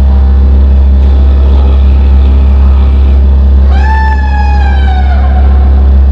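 Improvised electroacoustic drone music: a loud, steady low synthesizer drone from a WASP synth, with a high pitched tone that swoops up a little past halfway through and then slowly sinks over about a second and a half.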